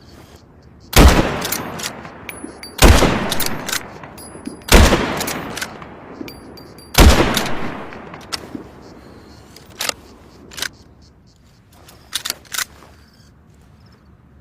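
Remington 700 BDL bolt-action rifle fired four times, about two seconds apart, each shot loud with a long echoing tail. Several quieter sharp clicks and knocks follow in the second half.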